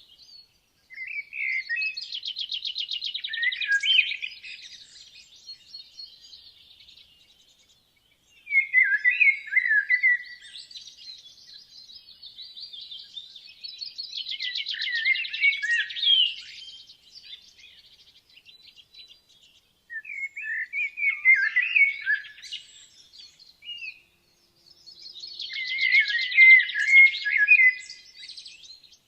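Woodland songbirds singing. A loud song phrase of a few quick notes running into a fast trill comes about five times, every five or six seconds, with quieter chirps from other birds between the phrases.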